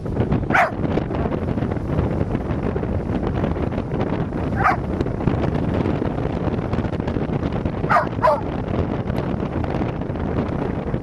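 Strong wind buffeting the microphone in a steady, gusty rush. Four short, sharp calls cut through it: one about half a second in, one near the middle, and two in quick succession near the end.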